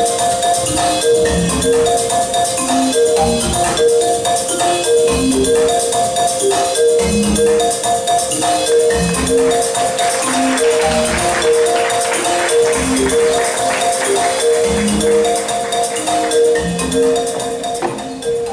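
Music with a repeating pattern of short, even mid-range notes over a low note about once a second, under a steady high shimmer; it stops abruptly at the end.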